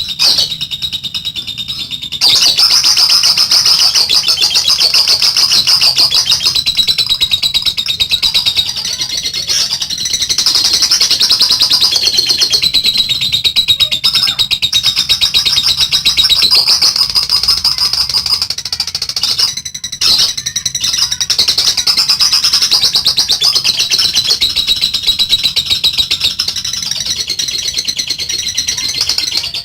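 Female lovebird ngekek: a long, rapid, high-pitched chattering trill delivered in long runs with brief breaks about 2, 10 and 20 seconds in.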